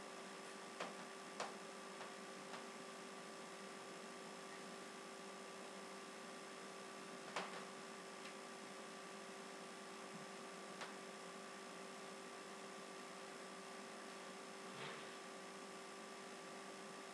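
Steady electrical hum and hiss, broken by a few short faint taps, the clearest about seven seconds in.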